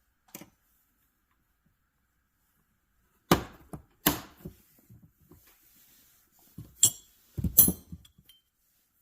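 Metal wrenches clinking and clacking as they are handled and pressed into plastic wrench-organizer rails: a handful of sharp knocks, the loudest a little over three seconds in and a cluster near the end.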